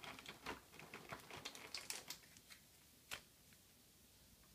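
Faint crackling and clicking of packaging being handled as booster packs are taken out of a collection box, with one sharper click about three seconds in.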